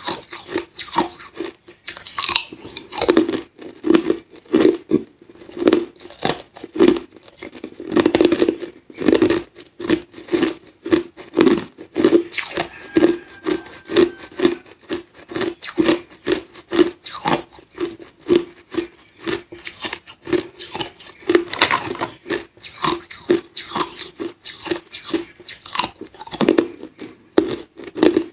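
Hard clear ice being crunched and chewed close to the microphone: a steady run of crisp crunches, about two a second.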